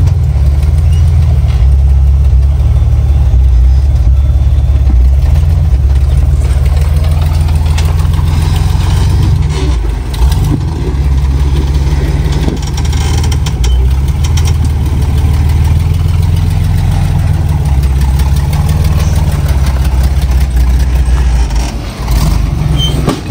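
Rock-crawler buggy's engine running at low revs as the buggy crawls over boulders, holding fairly steady with small rises and dips.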